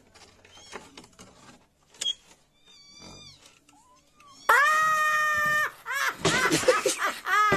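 A cat yowling loudly: one long, flat cry starting about halfway through, then several wavering cries. Before it come a few faint clicks of a key turning in a door lock.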